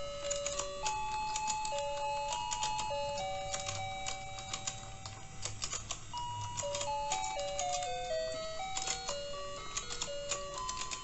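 Battery-operated rotating toy fishing game playing its simple electronic beeping tune, one plain note after another, while the board turns. Frequent light plastic clicks and rattles from the turning pond and the rods sound over the tune.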